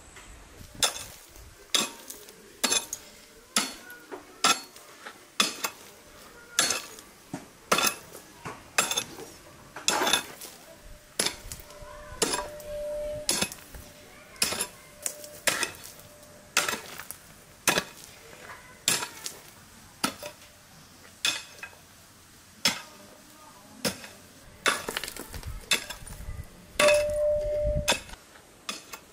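Metal objects knocking and clinking in a steady run, roughly one hit a second. A short metallic ring is held briefly about halfway through and again near the end.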